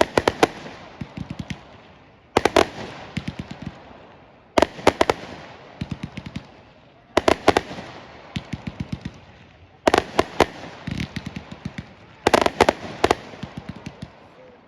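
Fireworks going off: six sharp bangs, about one every two and a half seconds, each followed by a quick string of crackling pops.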